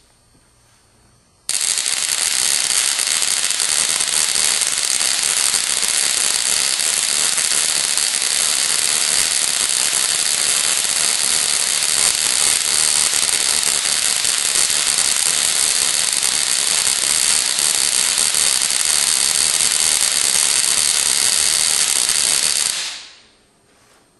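Ruhmkorff induction coil running, its high-voltage spark discharging across the electrode gap over a glass plate in a steady, loud buzz. It switches on abruptly about a second and a half in and cuts off shortly before the end.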